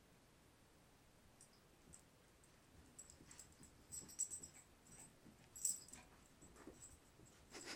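Faint scattered clicks and scuffs of a papillon and a cat play-fighting: paws and claws scrabbling on the rug and floor, getting busier from about three seconds in.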